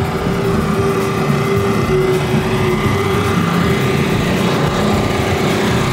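Small portable generator engine running steadily at a constant speed, a loud continuous hum powering the food trucks.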